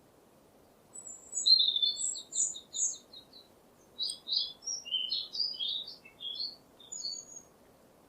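A songbird singing two phrases of high, quick notes: first a fast run of repeated chirps, then a more varied string of whistled notes. A faint steady hiss lies underneath.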